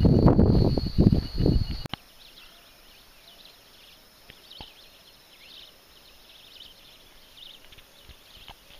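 Footsteps and rustling through dry grass with the microphone knocked about, over a steady high buzz, cutting off abruptly about two seconds in. Then a quiet outdoor stretch with faint, scattered bird chirps.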